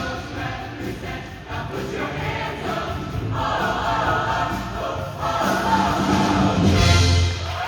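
Show choir singing with live band accompaniment, ending on a loud held chord that cuts off suddenly near the end.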